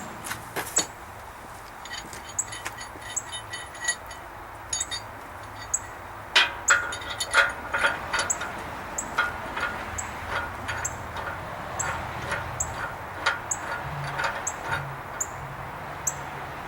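Steel shackles clinking and tapping against the bumper's shackle mounts as they are fitted: a run of short, sharp metal clicks and light ringing clinks, busier in the second half.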